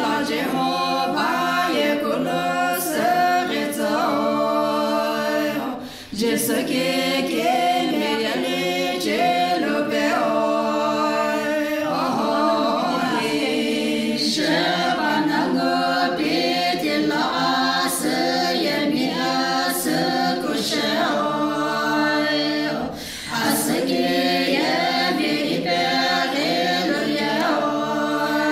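A group of women singing together unaccompanied, in a steady chant-like song, with two short breaks between phrases about six and twenty-three seconds in.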